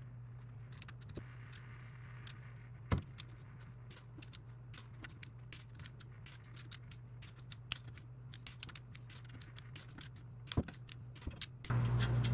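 Hand ratchet clicking and light metal clinks, a few per second, as bolts are run in on a Chevy 12-bolt differential's rear cover, with a louder clack about three seconds in and another near ten and a half seconds, over a low steady hum. A louder steady hum starts just before the end.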